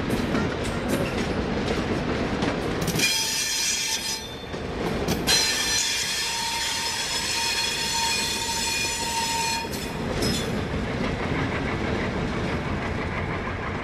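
Passenger train rolling past, its wheels clicking over rail joints, with a high-pitched steel wheel squeal from about three seconds in until about ten seconds in.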